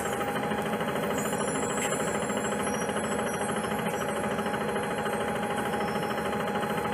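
The Cummins C Gas Plus natural-gas engine of a 2006 Orion VII CNG transit bus idling steadily, with a fast, even pulse and a faint steady whine above it.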